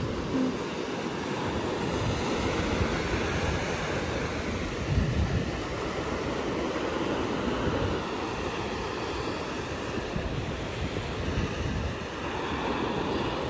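Ocean surf washing up a sandy shore at the water's edge, a steady rush of breaking and receding waves, with gusts of wind rumbling on the microphone.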